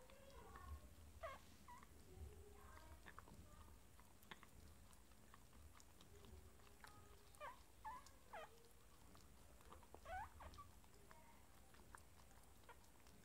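Faint wet licking and smacking as a mini dachshund mother cleans her newborn puppy, with a few brief high squeaks from the puppy about a second in, around eight seconds and near ten seconds.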